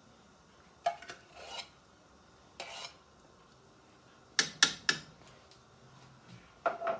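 Metal spoon clinking and scraping against a soup pot: scattered short knocks and scrapes, with three sharp clanks about four and a half seconds in, the loudest.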